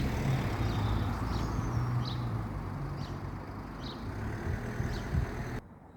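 Road traffic going past: a steady rumble of vehicle noise that slowly fades, with small birds chirping over it. The sound cuts off suddenly near the end.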